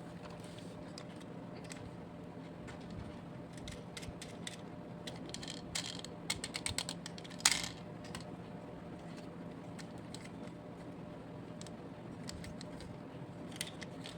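Small clicks and taps of die-cast toy vehicles being handled, with a quick run of ratchet-like clicking about six seconds in and a sharper click about a second later, over a steady low hum.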